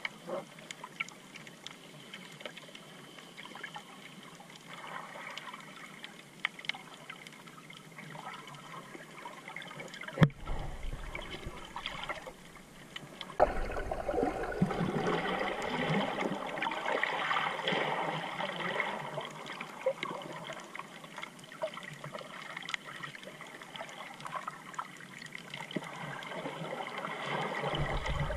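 Water heard underwater through an action camera's housing: a steady hiss with many faint scattered clicks. A sharp knock about ten seconds in is followed by low rumbling, and from about fourteen seconds the rush of water grows louder.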